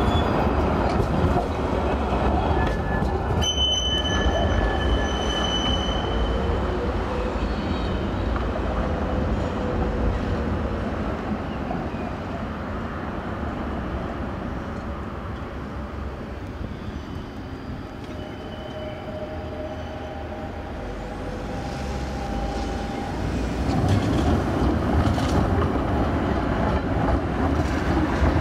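City tram rolling past on street track, its wheels squealing with high steady tones a few seconds in. The rumble fades over the following seconds, then another tram draws near and grows loud near the end.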